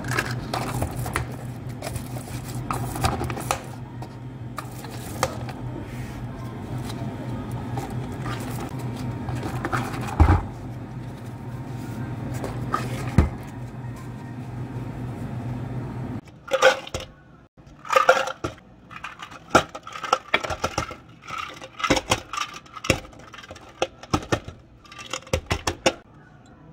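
Plastic handling and a few sharp clicks as domed lids and sleeves go onto plastic iced-drink cups, over a steady low hum. About two-thirds of the way in the hum stops and ice cubes clink irregularly as they drop into clear plastic cups.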